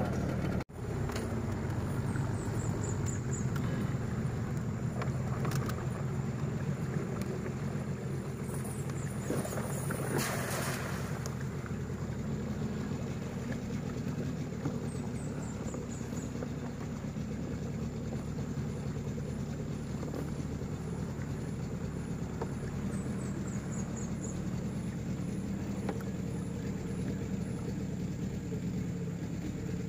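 Small outboard motor on a river boat running steadily.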